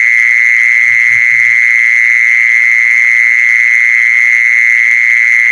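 A loud, unbroken, high-pitched trill, the call of an animal held steady without a pause.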